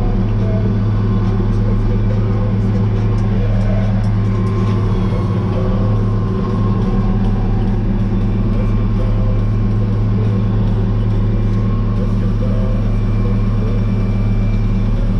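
Tractor engine running steadily at a constant speed, a deep even drone.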